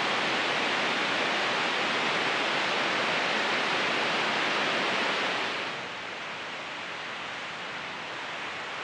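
Steady rushing of a waterfall cascading over rocks, the Lower Falls of Wallace Falls, as a dense even hiss of white water. A little past halfway it drops to a quieter, steady rush.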